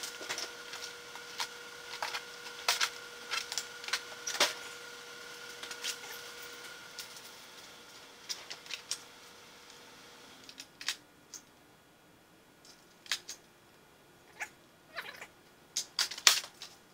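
Clicks and clatter of hand tools and drawers being handled at a rolling metal tool chest, in quick irregular knocks, with a steady faint whine during the first part that stops about ten seconds in.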